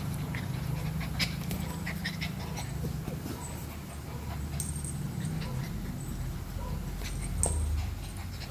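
Puppies whimpering, with a few short high squeaks, over a steady low hum and scattered small clicks.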